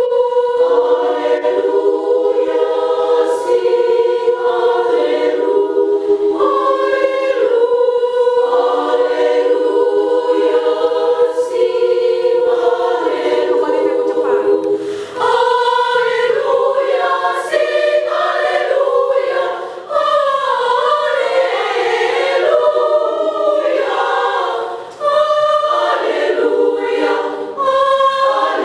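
Women's church choir singing a cappella in several parts, holding long chords, with short pauses for breath between phrases.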